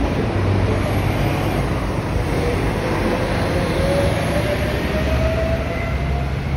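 Street traffic: city buses and cars running on the road close by, a steady low rumble with a whine rising in pitch through the middle as a vehicle speeds up.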